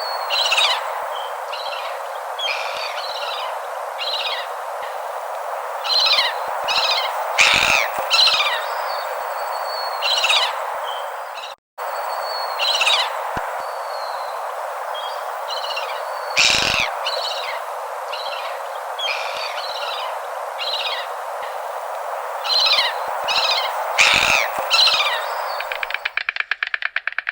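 Repeated short, high bird calls, each a quick falling note, over a steady hiss. Near the end they give way to a fast rattling buzz.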